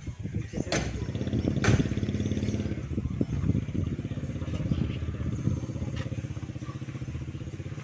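A small engine running steadily at idle, with two sharp knocks about a second apart near the start as heavy speaker cabinets are handled.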